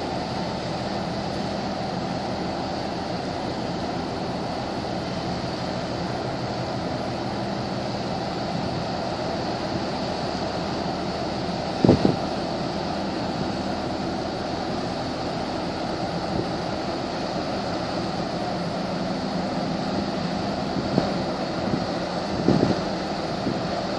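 Steady drone of a marine engine under a wash of water and wind noise on the microphone. There is a sharp thump about halfway through and a few smaller ones near the end.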